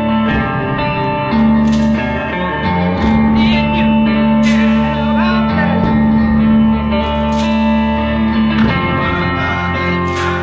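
Electric guitar with humbucking PAF-style pickups played through a 1964 Gibson GA77 RVT Vanguard tube amp with its reverb: picked chords and notes ringing out with a bright attack, and a string bend about halfway through.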